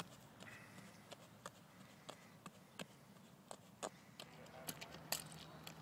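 Faint quick footsteps of a runner doing agility-ladder footwork on grass: short light taps a few per second, unevenly spaced.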